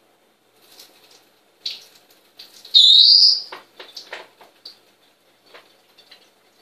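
Sporadic light clinks and knocks of dishes at a kitchen sink as soaked almonds are drained. About three seconds in there is one loud, high chirp lasting about half a second that rises and then levels off.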